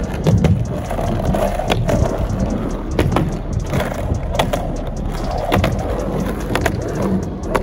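Skateboard wheels rolling on concrete: a steady rumble broken by scattered sharp clacks, about one every second or so.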